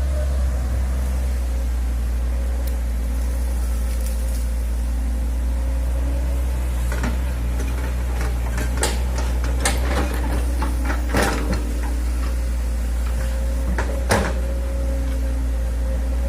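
Hitachi excavator running steadily at work, a deep engine drone with a steady whine over it. Several sharp knocks come in the second half.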